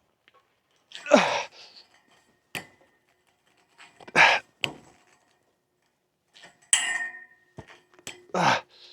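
A playground seesaw being ridden up and down: separate thunks and creaks a few seconds apart, some with a short falling squeak.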